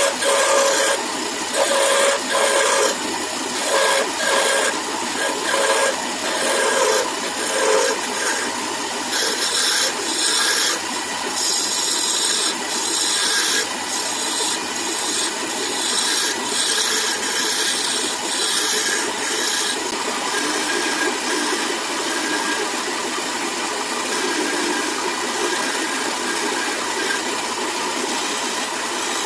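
Wood lathe running while a hand-held turning tool cuts the small spinning wooden spindle. There are repeated short scraping passes a little under a second apart early on, then a steadier hiss of cutting.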